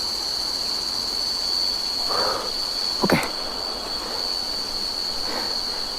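Crickets trilling in one continuous high-pitched note, with a single short knock about three seconds in.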